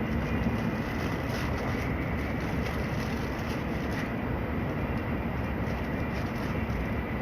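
Tokaido Shinkansen train running, heard inside the passenger cabin: a steady rumble and rush of running noise with a faint steady high tone.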